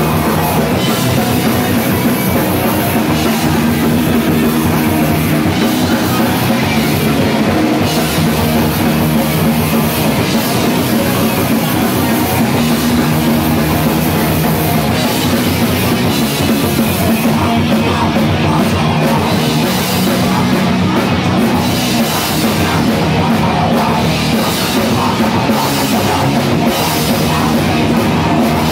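Live band playing loud, heavy rock music on electric guitars and a drum kit, continuous and dense.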